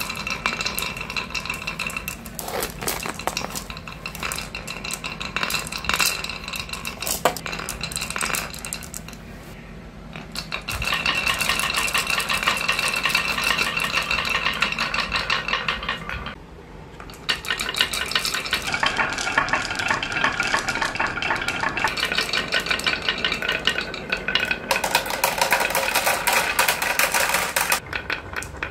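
Marbles rolling and clattering down grooved wooden marble-run slopes: a dense, rapid clicking of marbles against the wood and against each other. The clicking comes in several runs, with two short lulls partway through.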